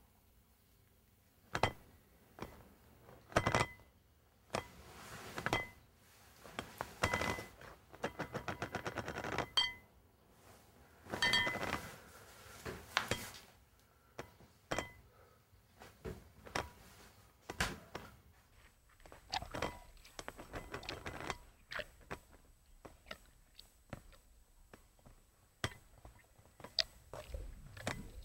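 Scattered knocks, clicks and light clinks in a small room. Around eight seconds in there is a fast, even rattle of clicks lasting about a second and a half.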